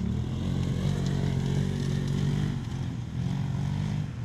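Polaris off-road race buggy's engine running hard, easing off briefly about three seconds in, then pulling again.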